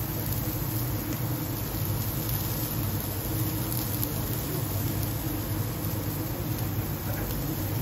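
Steady hum and hiss of a professional gas grill running, with the kitchen ventilation, as two steaks sizzle on its grid iron plate.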